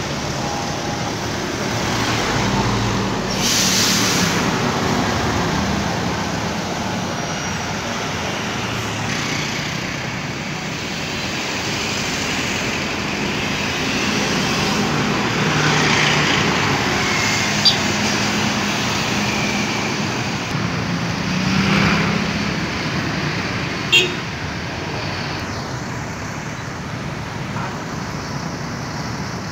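Busy road traffic: intercity coach buses, cars and motorcycles passing close by, their engine rumble swelling and fading as each goes past. Two brief sharp clicks in the second half.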